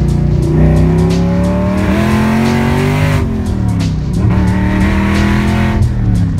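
Holden VZ Commodore's V8 heard from inside the cabin, revving up under hard acceleration, easing off about three seconds in, then climbing again before falling off near the end. A music track plays faintly underneath.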